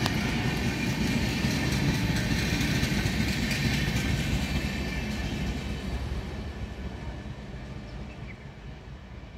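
Express train's passenger coaches rumbling past on the rails. The sound fades steadily as the tail of the train draws away.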